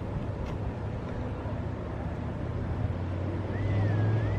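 Outdoor seaside ambience: wind buffeting the microphone over ocean surf, with a steady low rumble. A short wavering whistle sounds near the end.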